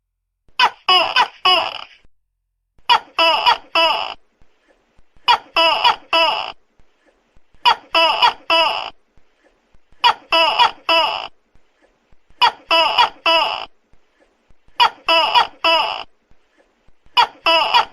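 Tokay gecko calling loudly: tight groups of three or four short calls, each group about a second long, repeating at an even pace about every two and a half seconds.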